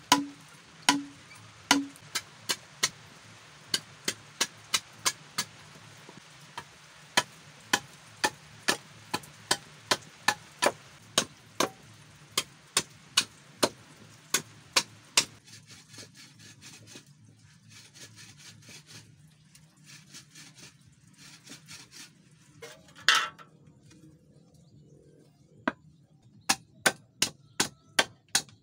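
Machete blade chopping into green bamboo in sharp, quick strikes about two a second. About halfway through the strokes turn softer and fainter as the blade trims the end of a cut bamboo section, with one louder knock, before brisk chopping strikes return near the end.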